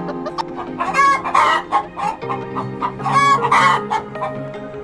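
Chickens clucking, with two loud calls about one and three seconds in, over steady background music.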